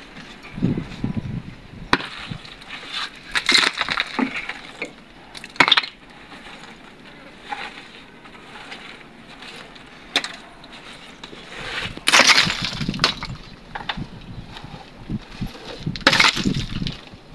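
Broken concrete and rubble clattering and scraping as it is pulled by hand out of an opened concrete tomb niche, in irregular bursts, loudest about twelve and sixteen seconds in.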